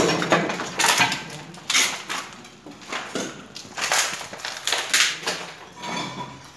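Footsteps crunching over debris on a hard floor, roughly one step a second.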